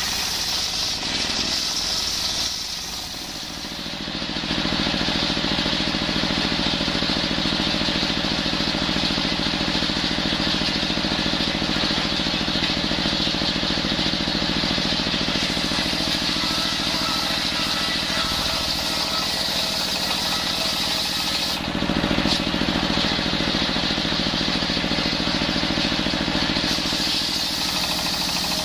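Horizontal single-cylinder diesel engine running steadily and driving a table circular saw whose blade rips lengthwise through a coconut-wood log. The heavier sound of the blade in the wood comes in about four seconds in and holds, briefly easing and picking up again about three-quarters of the way through.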